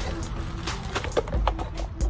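Bubble wrap and cardboard crinkling and rustling in short bursts as a wrapped LED light bar is handled in its shipping box, over background music.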